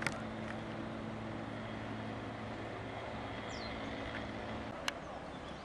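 Boat engine idling with a steady low hum that cuts out near the end, over a background of open-air noise. There is a sharp knock at the start and another just after the hum stops.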